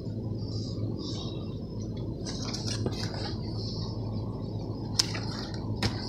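Shop background noise: a steady low hum with faint rustling, and two sharp clicks near the end.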